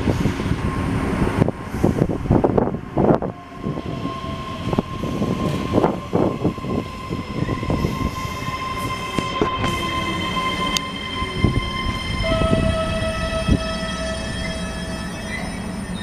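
Ivolga electric multiple unit pulling into a platform and slowing to a stop. Its wheels clatter over the rail joints, then a set of steady whining tones sets in as it brakes. The tones jump to a different pitch about three quarters of the way through.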